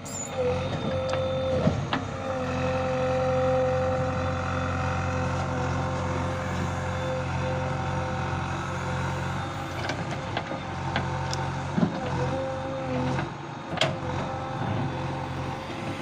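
A backhoe loader's motor running steadily, with a held whine and scattered short clicks and knocks.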